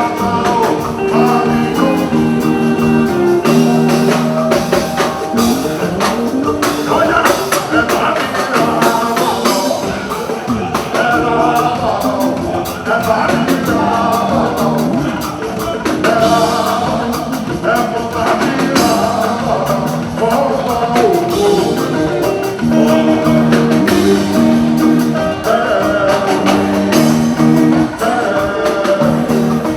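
Music with singing over a dense, steady percussion beat, including tambourine-like shakes.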